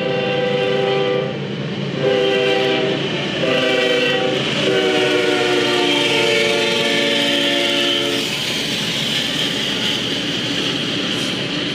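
Locomotive's multi-chime air horn sounding the grade-crossing signal: two long blasts, a short one, then a long one held for about three seconds that stops about eight seconds in. After that, the steady rumble and rail clatter of a double-stack intermodal train's cars rolling past.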